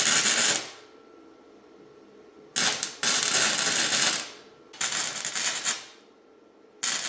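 Arc welder laying short tack welds on a steel frame: four crackling bursts, each about a second long, with pauses between them.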